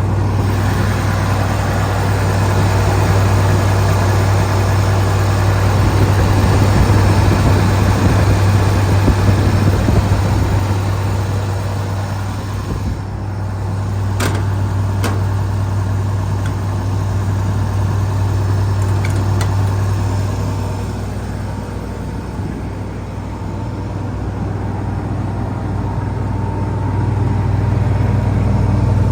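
Diesel engine of a Wirtgen W100F asphalt milling machine running steadily, its loudness easing off twice and picking up again near the end, with a couple of sharp clicks about halfway through.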